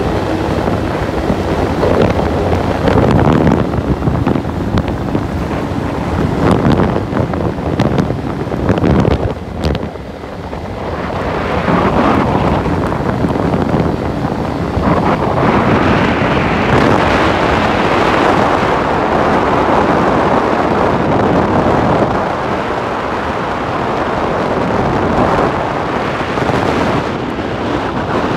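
Wind buffeting the microphone of a moving vehicle, with the rush of the ride underneath; it rises and falls in gusts and dips briefly about ten seconds in.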